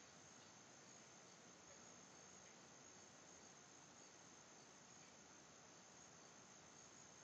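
Near silence: faint room tone with a steady high-pitched hiss.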